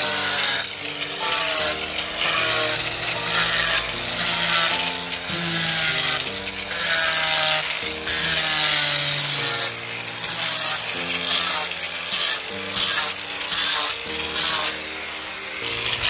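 Angle grinder with a sanding disc sanding pine wall boards: a steady high grinding hiss whose whine dips in pitch about once a second as the disc bears on the wood, over background music.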